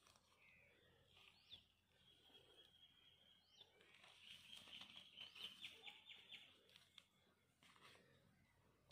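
Faint birdsong: a few short high chirps, a held whistle, and a quick rapid trill around the middle.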